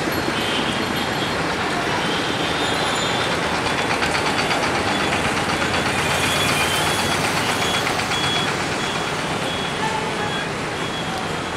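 Steady rumble of an approaching diesel-hauled passenger train mixed with city traffic noise, with a short high beep repeating over and over.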